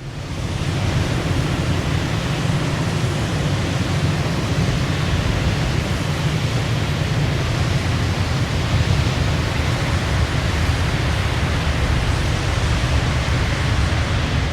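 Blizzard wind: a steady, dense rushing noise, heaviest in the low end, swelling up out of silence within the first second and then holding.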